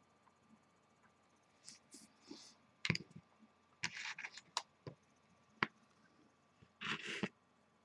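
Faint handling noises from a rebuildable dripping atomizer on an ohm-reader base being picked up and turned in the hand: a few sharp clicks and knocks, the loudest about three seconds and five and a half seconds in, with short rustling scrapes between them and near the end.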